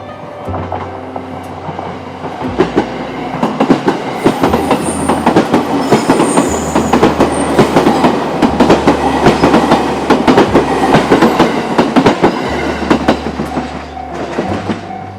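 An electric train on the JR Togane Line passing close by at a level crossing, its wheels clacking rapidly over the rail joints. The clatter builds about two seconds in, is loudest through the middle and fades near the end.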